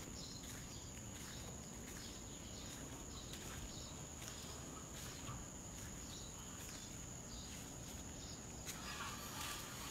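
Steady high-pitched insect drone, like crickets, with faint footsteps through it and a brief louder noise near the end.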